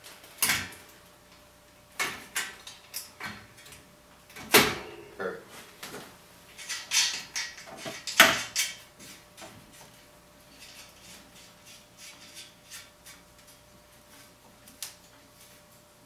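Metal clicks and knocks as the axle of a geared front hub motor is worked into the fork dropouts, a few sharp knocks in the first half, then lighter ticks.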